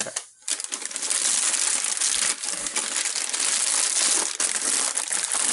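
Packaging crinkling and rustling as a box of craft supplies is unpacked, with a dense continuous crackle starting about half a second in.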